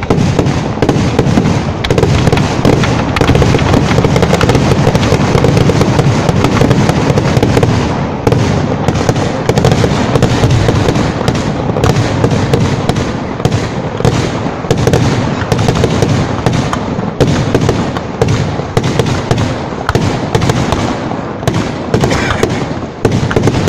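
A fireworks display going off in a dense, unbroken barrage: aerial shells launching and bursting in rapid bangs and crackle, with no pause.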